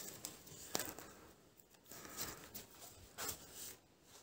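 Hands working netting twine with a plastic netting needle while tying a net onto a rope: soft rustling and a few quick rasping pulls of the cord, the sharpest about a second in and near the end.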